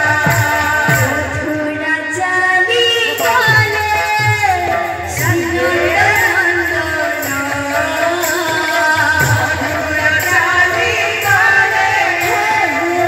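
Live Odia devotional kirtan: a woman singing into a microphone over a two-headed hand drum and small hand cymbals keeping a steady rhythm.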